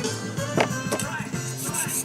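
Background music with plucked-string notes. Near the end, a steel knife starts scraping back and forth on a whetstone as its tip is ground.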